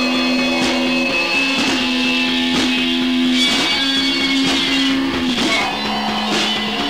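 Death doom metal rehearsal recording: distorted electric guitars hold long, slow chords over a slow, steady beat. A little after five seconds in, the chord shifts down to a lower note.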